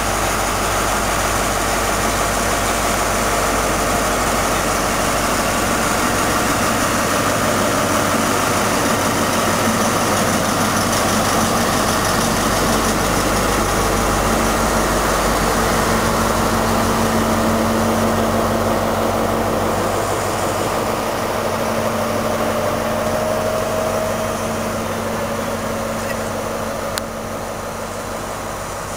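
Slow-moving diesel train passing close: the failed HST set, its leading power car 43160 going by, pushed from the rear by a Class 59 diesel locomotive. A steady engine drone, with a steady hum joining about halfway as the power car's cooling grille passes, then the coaches roll by.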